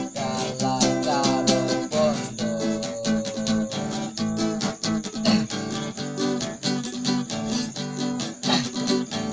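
Acoustic guitar strummed steadily in a quick, even rhythm, its chords ringing.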